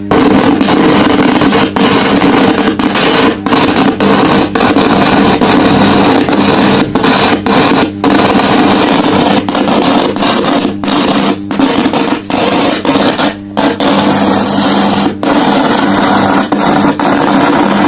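Big tower home theatre speaker giving out a loud, harsh rumbling-crackling noise over its music with a steady hum underneath, cutting out briefly many times at irregular moments: the thundering-cloud noise fault when playing from Bluetooth, AUX or FM, usually caused by a failed amplifier IC.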